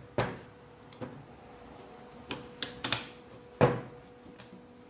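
Bent steel tube and its jig being handled on a plywood board: a handful of sharp knocks and clinks, the loudest about three-quarters of the way in, over a faint steady hum.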